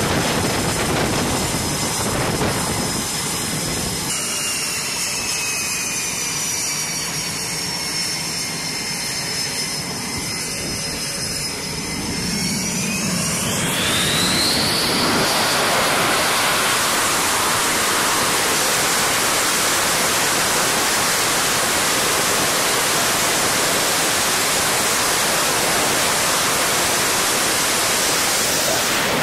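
Jet fighter's twin engines on a carrier catapult winding up for launch: a high whine that dips slightly, then rises sharply about 13 seconds in as the engines spool up to full power, followed by a steady loud jet roar.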